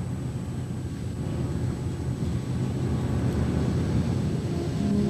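Steady low droning hum of machinery inside a deep-sea submersible, heard in the cabin as its manipulator arm works. A few held tones join the hum near the end.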